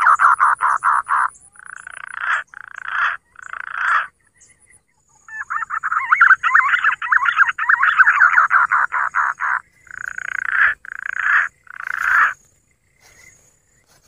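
Punai (green pigeon) call blown loudly on a hunter's bird caller. It comes twice: a fast warbling run of about ten pulses a second, then three longer separate notes. A sharp click comes near the end.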